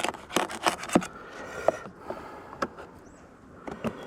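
Clicks and light knocks of hands handling the parts of a beehive's top feeder: a quick cluster in the first second, then a few scattered ones.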